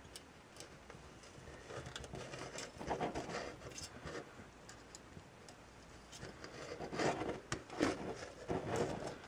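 Faint scraping and rubbing of a soldering iron tip and solder wire worked along a metal can seam, with a cluster of louder scrapes near the end.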